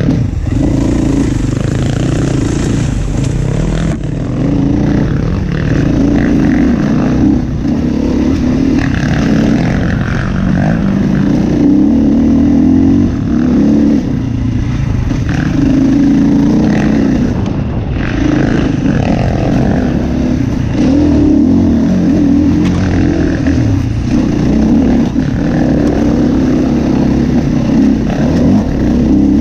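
Enduro dirt bike engine being ridden hard off-road, revving up and dropping back over and over, about every two seconds, as the throttle is worked.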